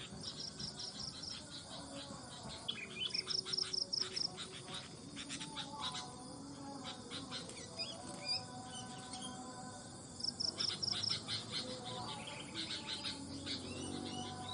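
Sooty-headed bulbul calling in bursts of quick, bubbly chirps. A short, evenly pulsed high trill also sounds three times.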